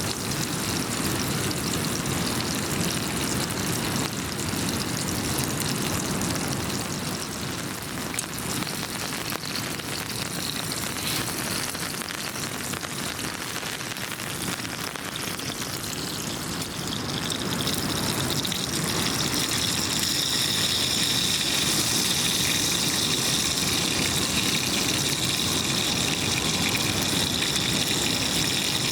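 Steady rushing, water-like noise that grows louder and brighter about two-thirds of the way through.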